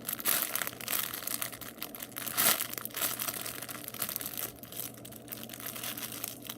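Crinkling and rustling as a baguette-shaped foam squishy toy is squeezed and handled in the hands, in irregular bursts with a louder crackle about two and a half seconds in.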